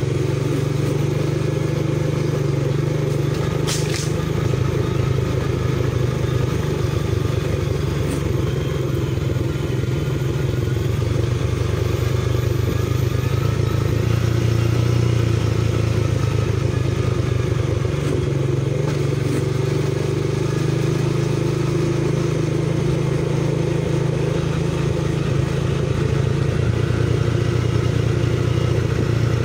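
Motorcycle engine running steadily while riding at an even pace, with one brief sharp tick about four seconds in.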